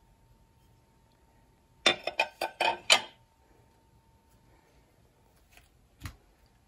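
Glass dishes clinking together, a quick run of six or so ringing clinks about two seconds in as the pieces are handled and set down. A soft thump near the end.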